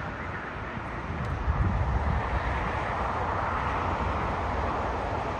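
Jet engines of a United narrow-body airliner rolling along the runway, heard at a distance as a steady rush that swells about a second and a half in. Low wind rumble on the microphone runs underneath.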